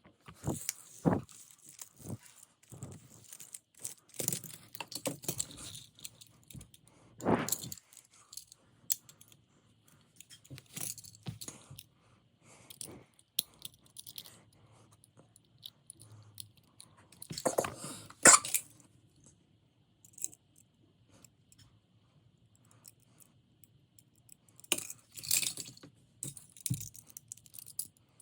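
Small die-cast toy cars being handled: irregular clicks, taps and short metallic rattles, with the loudest clatter about two thirds of the way through.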